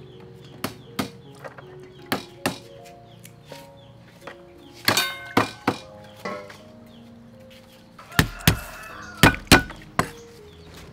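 A cleaver chops on a wooden cutting board in irregular knocks, the heaviest blows coming in a quick run near the end. A ringing metal clang sounds about five seconds in.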